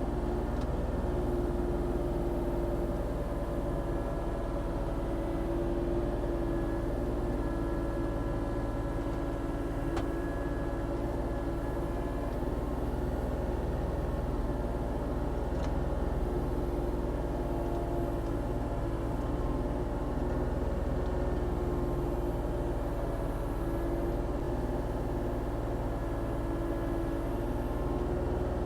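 Volvo ECR40D compact excavator's diesel engine running steadily at a constant speed.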